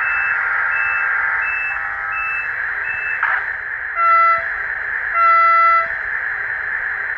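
TGV model train's DCC sound decoder playing through its small speaker: a steady electric running sound, a run of five short high beeps evenly spaced over the first three seconds, then two horn blasts, a short one about four seconds in and a longer one a second later.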